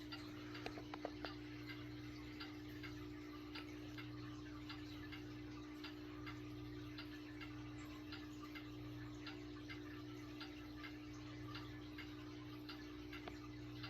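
Vintage Lakewood Country Aire three-speed box fan with a Westinghouse motor running steadily. It gives a faint, even motor hum with a light, regular tick about every two-thirds of a second.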